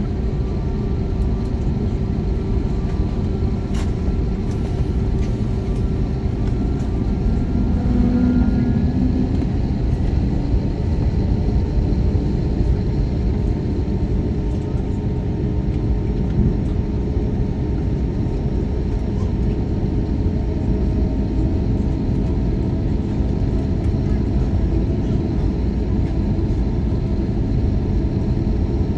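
Airbus A321neo's Pratt & Whitney PW1100G geared turbofan engines running, heard from inside the cabin: a steady low rumble with a few faint steady whining tones above it.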